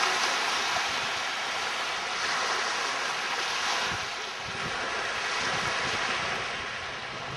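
Small Lake Michigan waves washing steadily onto a sand beach, with wind rumbling on the microphone that picks up in the second half.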